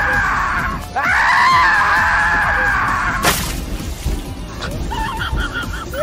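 Riders screaming in one long, held scream as a log flume boat plunges down its drop, then a sharp splash about three seconds in as it hits the water.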